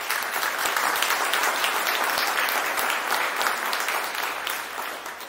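Audience applauding: many hands clapping together in a steady dense patter that eases off slightly near the end.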